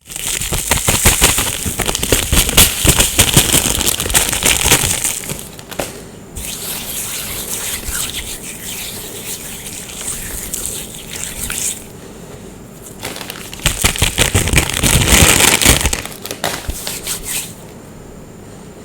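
Blocks of glittery gym chalk being crushed and crumbled, a dense crackling with many sharp crunches. It is loud for the first five seconds, softer crumbling follows, and a second loud bout of crushing comes about two-thirds of the way through.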